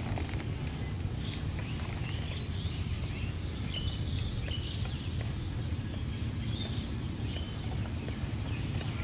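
Birds chirping in short, scattered calls over a steady low rumble of outdoor background noise, with one sharper call near the end.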